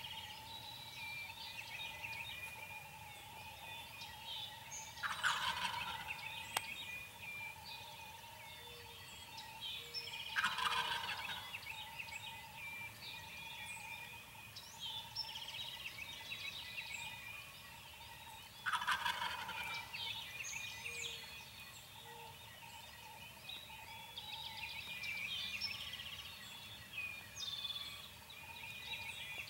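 Wild turkey gobbling three times, each gobble a rattling burst about a second long, with smaller birds chirping throughout.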